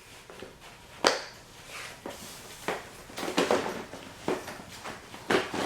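Plastic tackle boxes being handled: a sharp click about a second in, then rustling and knocking as boxes are moved and opened.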